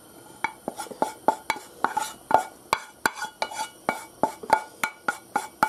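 Wooden spoon knocking and scraping inside a small metal frying pan, a string of sharp knocks with a short metallic ring, about three a second, starting about half a second in, as the last of the oil is scraped out of the pan.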